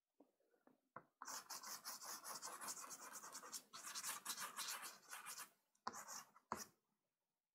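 Pastel stick scratching across Pastelmat paper in quick strokes for about four seconds, followed by two short taps.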